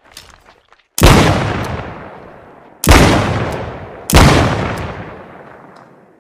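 Smith & Wesson Model 13 revolver fired three times, about two seconds then a second and a half apart, each shot ringing out in a long fading echo. A few faint clicks come before the first shot.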